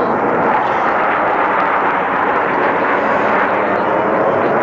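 Jet engine roar from a formation of military jets passing over, a loud steady rumble with no breaks.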